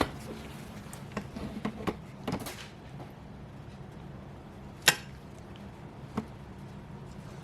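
Scattered sharp metallic clicks and clinks from rear drum brake shoes and their hardware being handled and fitted: a cluster of light ticks early, one loud click about five seconds in and a smaller one after it, over a steady low hum.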